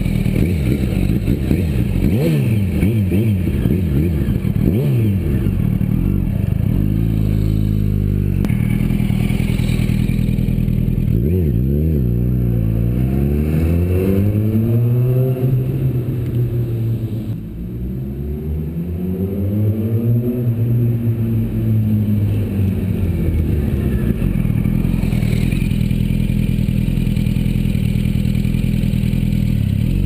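Yamaha YZF-R1 sport bike's inline-four engine revving: several quick throttle blips about two seconds in, then long pulls with the pitch climbing and falling as the bike rides off and comes back. It settles to a steady low note in the last few seconds.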